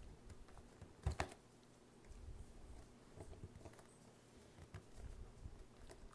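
Quiet handling of a bookbinding awl and paper in a punching cradle: one sharp tap about a second in, then light scattered taps and low thumps as the awl is pressed through the signature to punch sewing holes.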